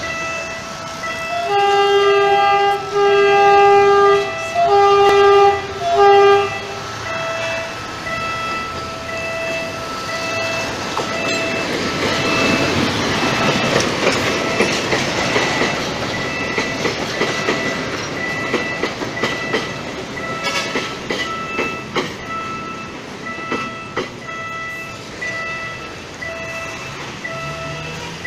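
PNR diesel locomotive blowing its horn in a series of short blasts as it approaches, then passing close with its engine running and its flat cars' wheels clattering over the rail joints. A level-crossing warning beeps in a steady repeating pattern behind it from about seven seconds on.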